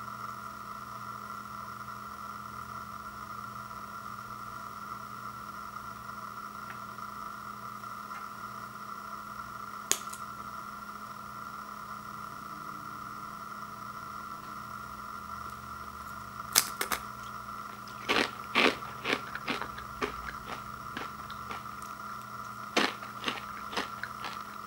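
Crunchy rolled tortilla chips snapped by hand: one sharp crack about ten seconds in, then a run of crisp snaps and crackles over the last several seconds as the chips are broken into small pieces. A steady hum runs underneath.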